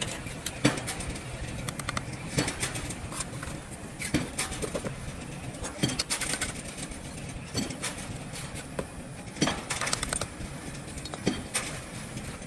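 Steel trowel tapping and scraping on hollow clay bricks and wet mortar as the bricks are bedded: a string of sharp, irregular clinks and knocks.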